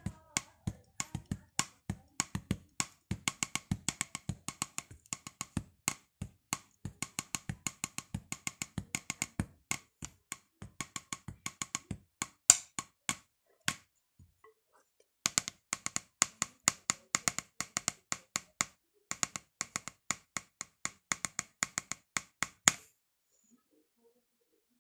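Wooden drumsticks striking a rubber drum practice pad in a steady, even stream of strokes, broken by two short pauses and stopping near the end.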